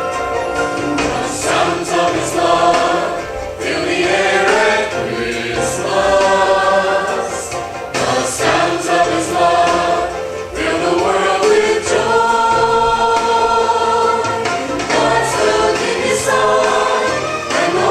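A choir singing sustained chords that change every second or two, over steady low notes.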